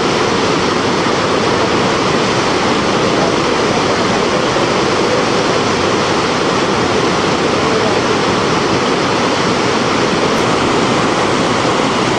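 Seti River in flash flood: a swollen, fast-flowing river rushing, loud and steady.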